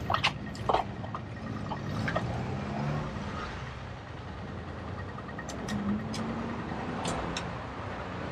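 City street traffic heard from a moving bicycle: a motor vehicle running close by over a steady haze of road and wind noise. A few sharp clicks come right at the start and several more in the second half.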